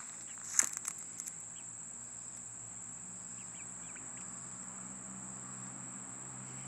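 Steady high-pitched drone of insects, with a sharp tap about half a second in followed by a few lighter clicks, and a few faint short chirps around the middle.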